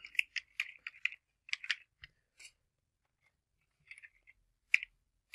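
Computer keyboard keys clicking as a word is typed: a quick run of keystrokes in the first second or so, then a few more spaced-out taps.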